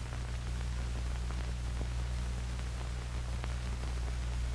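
Background noise of an old film soundtrack: a steady low hum under hiss, with faint scattered crackles.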